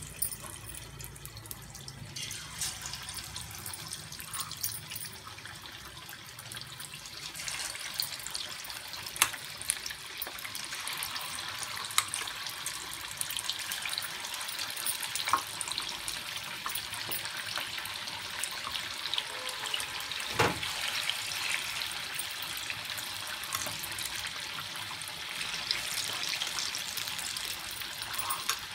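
Coated chicken pieces deep-frying in hot oil in a kadhai: a steady sizzling and bubbling that grows louder after the first several seconds as more pieces go in. A few sharp clicks of a steel spoon against the pan stand out from it.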